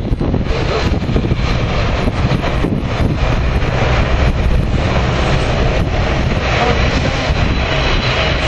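Jet engines of a Boeing 777-200 airliner on landing approach: a loud, steady rushing noise with a deep rumble, growing a little fuller near the end.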